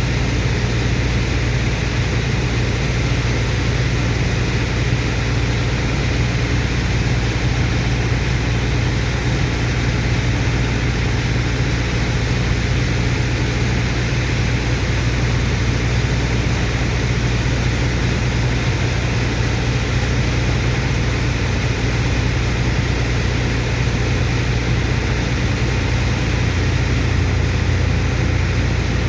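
Sand dredger's engine and water pump running steadily: a constant heavy low drone with an even hiss over it, unchanging throughout.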